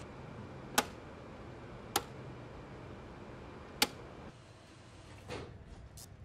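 Circuit breakers in a wall-mounted breaker panel being switched one after another by hand: three sharp clicks, the first two about a second apart and the third nearly two seconds later, then a softer click and a faint tick near the end. A low background hum drops away after the third click.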